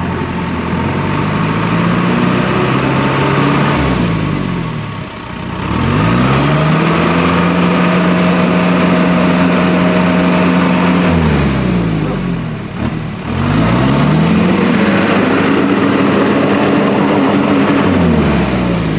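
A vehicle engine revving hard under load while a van is pulled out of deep mud. The revs are held high for several seconds, drop off, then build and hold again twice.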